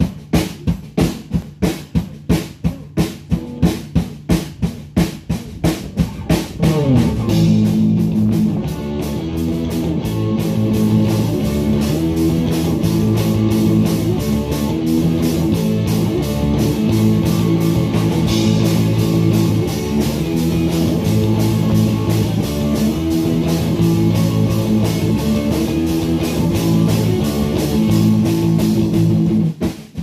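A band warming up: a drum kit plays a steady beat on its own, then about six seconds in guitar chords come in over the drums and keep going. Just before the end the guitar stops and the drums carry on alone.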